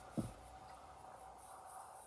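Quiet room tone with a faint steady hum, broken by one brief low thump just after the start.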